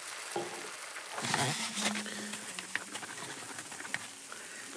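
Plastic bag of golden linseed rustling as it is handled and tipped, with a few small clicks of seeds falling. The loudest rustle comes about a second and a half in, followed by a brief low hum.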